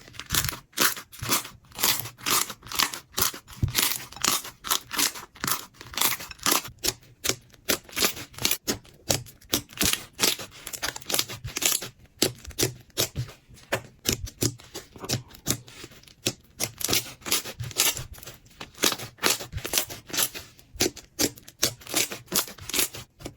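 Slime being squeezed and pressed by hand, giving a quick, even run of sticky crackles, about three a second.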